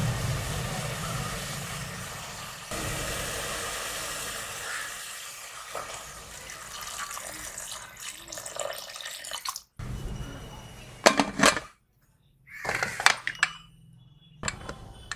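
Water poured in a steady stream into an aluminium pressure cooker of meat and chickpeas, splashing for about ten seconds. It stops suddenly, and a few short metal clanks and clinks follow as the pressure cooker lid goes on.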